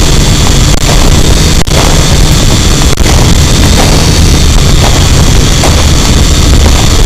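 Drone's electric motors and propellers running steadily, very loud on the drone's own onboard microphone. The sound cuts out for an instant a few times, about a second and a half and three seconds in.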